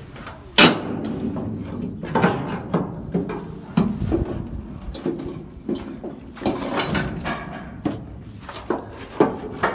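Irregular knocks and bumps inside a steel shipping container, the loudest a sharp bang about half a second in.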